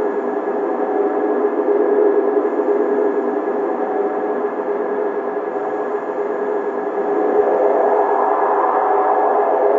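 A steady hissing drone with several held tones underneath, swelling slightly about eight seconds in: an ambient sound-collage texture built from watch-factory sounds.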